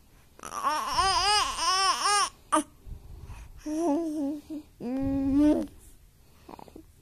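A baby cooing and babbling: a quick run of four sing-song rising-and-falling sounds, then a wavering coo, and a steady held coo about five seconds in.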